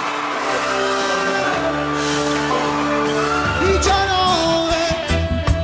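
Live reggae band music: long held keyboard chords with a singing voice, then drums and bass come in on a steady beat near the end.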